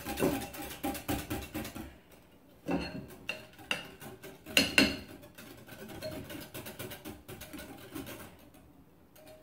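Wire whisk stirring a liquid ice cream base in a glass mixing bowl, clinking rapidly against the glass at first, then in scattered clinks and knocks, the loudest near the middle, dying away near the end.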